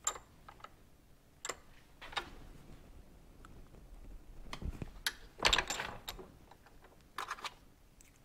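Small metal clicks, taps and scrapes as a thin annealed steel spring clip is bent and pressed by hand against the jaws of a cast-iron bench vise, with the loudest clatter about five and a half seconds in.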